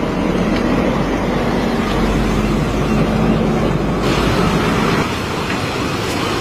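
Steady rushing noise of wind on the microphone over surf, with a faint low hum in the first half. The hiss turns brighter about four seconds in.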